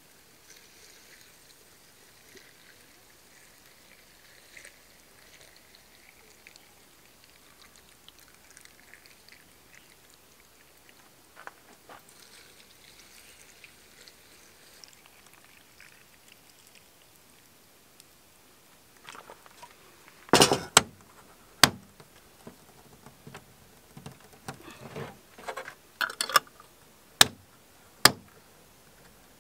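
Water poured from a kettle into glass jars packed with peppers, a faint steady trickle. About two-thirds of the way in come sharp clicks and knocks as metal twist-off lids are set on the glass jars and screwed down.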